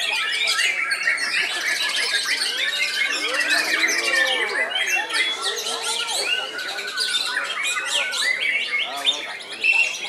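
Dense, unbroken songbird song: a caged white-rumped shama (murai batu) singing among other caged birds. It is a rapid, overlapping mix of whistles, chirps, squawky notes and pitch glides, with lower swooping whistles in the middle.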